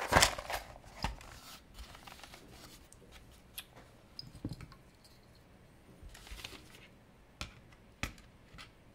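Cardboard-lidded parts box handled and opened with a brief rustle, followed by sparse single clicks from a hobby Geiger counter's buzzer held over vintage watches. The clicks come only now and then, at background rate, showing no radium in these watches.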